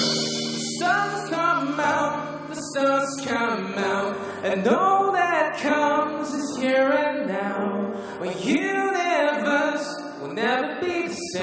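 A live band playing a pop song, with a male voice singing long, sliding held notes over the accompaniment.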